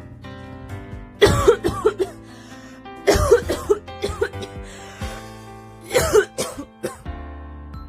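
A person coughing in three bouts of several quick coughs each, the first starting about a second in, over background music.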